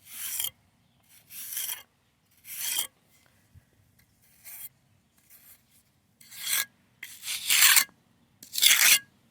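A hand tool scraping and smoothing a freshly patched corner of wet concrete: about six separate rasping strokes, each about half a second, the last two loudest.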